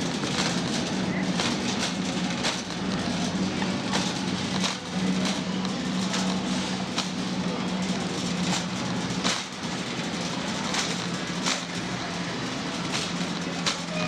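Grocery shopping cart rolling and rattling along a store floor, with irregular clicks and knocks, over a steady low hum.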